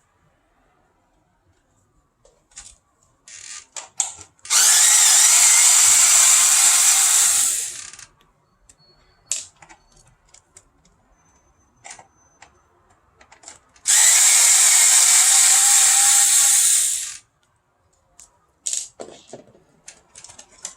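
A handheld power tool running in two steady bursts of about three seconds each. Scattered clicks and knocks of handling come before, between and after them.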